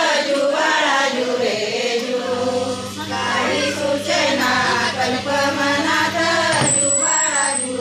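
A group of women singing together: a pāḷaṇā, the Marathi cradle song sung for Rama's birth while the cradle is rocked.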